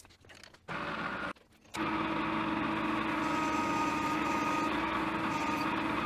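Metal lathe started briefly, stopped, then started again about two seconds in and running steadily with a constant hum and whine, spinning an aluminium part in its chuck.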